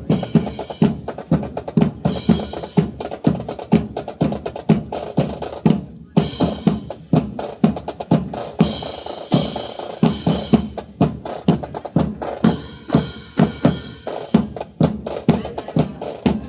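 Snare and bass drums beating a steady marching cadence, the drum accompaniment to a rifle drill display, with a brief break about six seconds in.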